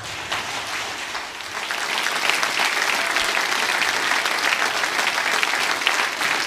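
Audience applauding a concert band, the clapping starting thin and swelling to a full, steady applause about two seconds in.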